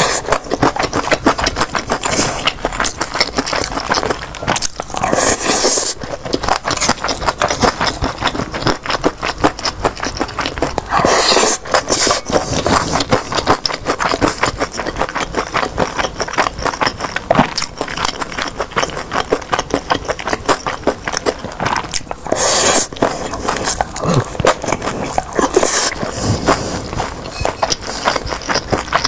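Close-miked eating: a dense, crackly run of chewing and crunching on crisp food, with a few louder, longer bursts of crunch or scraping spread through it.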